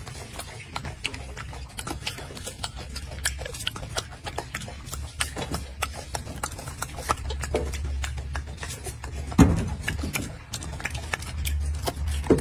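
Golden snub-nosed monkey eating fruit close up: irregular sharp clicks and smacks of chewing over a low steady rumble, with one louder thump about nine seconds in.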